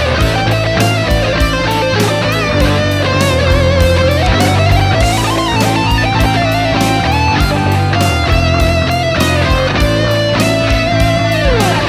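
Electric guitar playing a melodic lead with string bends and vibrato over a steady beat with bass, sliding down in pitch near the end.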